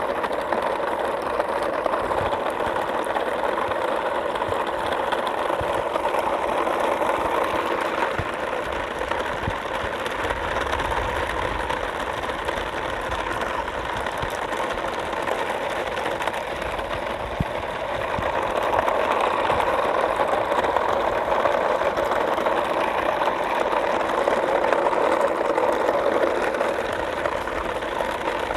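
A motor running steadily, a continuous mechanical hum that grows somewhat louder about two-thirds of the way through.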